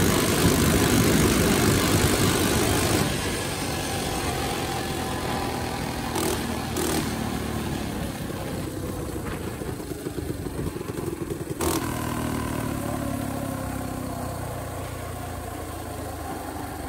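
Coleman CT200U minibike's 196cc single-cylinder engine, fitted with a 30 mm PWK carburettor, running under throttle on the move. After about three seconds it eases off and its note slowly falls as the bike coasts. Three short knocks come through, near 6, 7 and 12 seconds.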